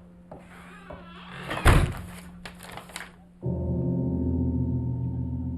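Rustling and clatter with one heavy thunk about two seconds in, then a sustained low musical chord that starts abruptly about three and a half seconds in and holds.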